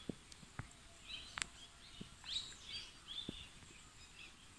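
Faint birdsong: a series of short chirping calls, with a few light clicks.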